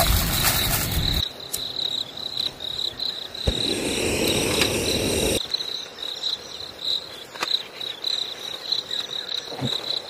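Cicadas singing in a steady chorus, a high buzz that pulses rapidly. Over it there is a rushing noise at the very start, another burst of rushing noise for about two seconds in the middle, and a few sharp clicks.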